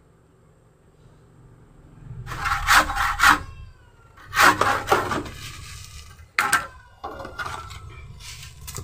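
Hand saw cutting through a bougainvillea stem: rasping back-and-forth strokes in several short bursts, starting about two seconds in.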